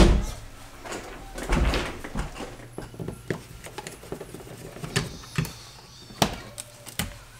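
A dull thump at the start, then a short scrape and scattered sharp clicks and small knocks: a screwdriver working plastic wall-outlet cover plates and their screws loose.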